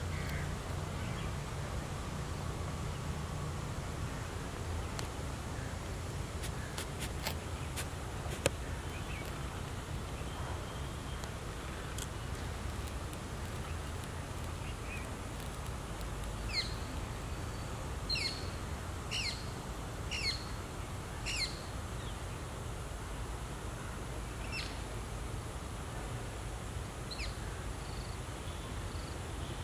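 Open-air ambience with a steady low rumble and a bird calling: a run of about six short, sharp high calls, roughly one a second, starting a little past the middle, then a few more near the end. A few faint clicks come in the first third.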